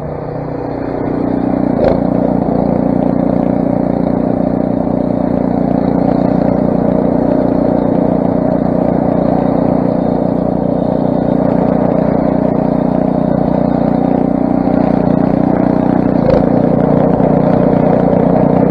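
Craftsman snowblower's 6 hp Briggs & Stratton single-cylinder engine running steadily, getting louder over the first second or two and then holding an even note. Two brief clicks sound, about two seconds in and near the end.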